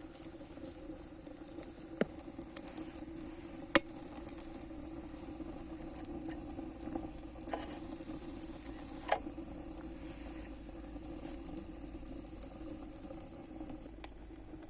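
Wood fire burning in a rocket stove: a steady low rumble with three sharp pops, about two, four and nine seconds in.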